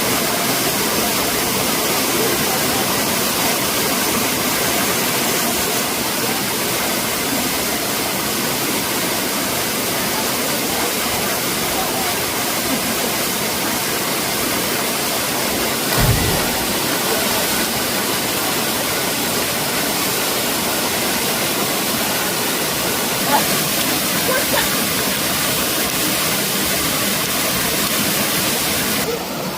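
Waterfall pouring, a steady loud rush of falling water. A brief low thump comes about halfway through.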